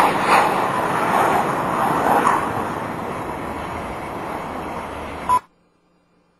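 Rushing noise of a Guided MLRS rocket launch, fading steadily as the rocket flies away, then cutting off abruptly after about five seconds.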